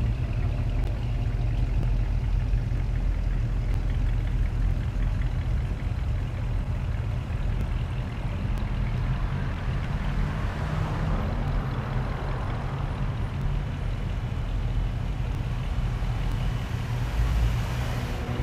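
Cars driving past on a street, one after another, over a steady low rumble. One passes more loudly about ten seconds in, and another just before the end.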